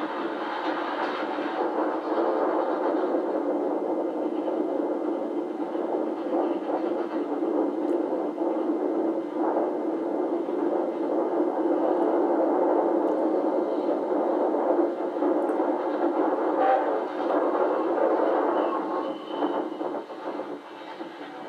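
Running noise of a steam-hauled passenger train heard from aboard, with another steam locomotive running on the parallel track: a steady, dense rumble that drops in level near the end. It is re-recorded off old videotape through a television's speaker, so it carries no deep bass.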